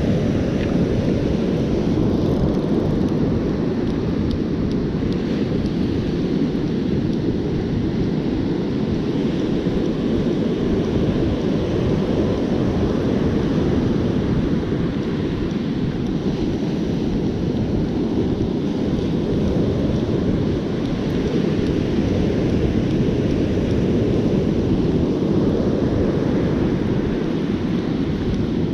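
Steady low rumble of wind buffeting the microphone, over the wash of surf breaking on the beach.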